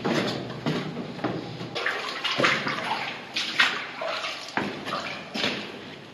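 Footsteps on gritty concrete stairs in a bunker stairwell, scuffing about twice a second.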